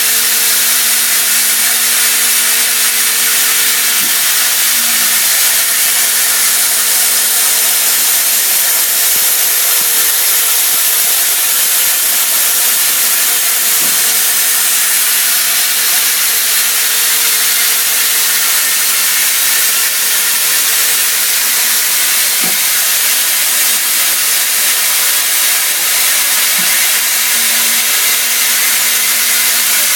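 CNC milling of 30% silicon-carbide-reinforced aluminium (AlSiC) with a CVD diamond end mill under flood coolant: a loud, steady spraying hiss of coolant and cutting, with a steady low hum and its overtone underneath.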